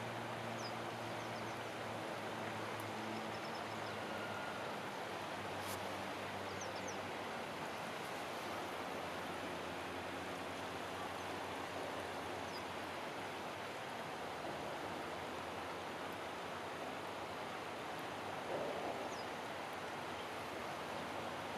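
Shallow river water rushing steadily over a stony bed. A faint low hum fades out over the first several seconds, and a few faint high chirps come through.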